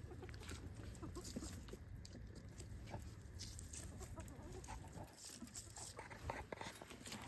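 Hens clucking faintly now and then, over a low steady rumble.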